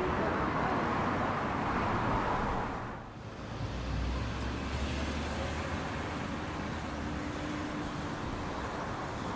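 Street traffic ambience: a steady haze of car and city noise. About three seconds in it dips briefly and gives way to a quieter background with a low rumble.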